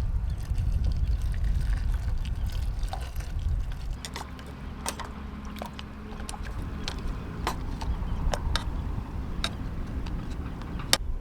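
Low wind rumble on the microphone, easing after about four seconds, with scattered sharp clicks and taps.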